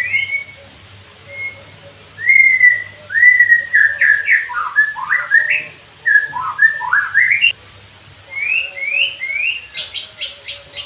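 White-rumped shama (murai batu) singing: clear whistled phrases that glide up and down, separated by short pauses, then near the end a quick run of short sharp notes, several a second.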